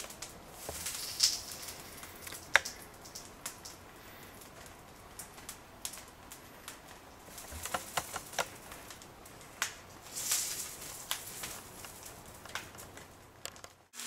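Copper motor windings of an air-conditioner compressor burning after shorting out under locked rotor: irregular crackles and sharp pops from the burning winding insulation, with a few louder snaps, over a faint hiss.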